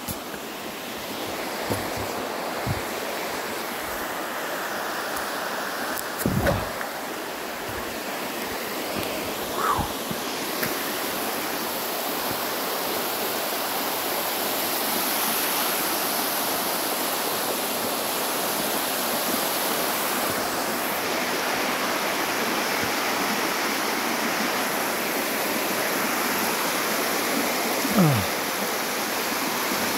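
Water rushing down a smooth granite slab at the top of a waterfall, a steady, even rush. A few short bumps stand out over it, the strongest near the end.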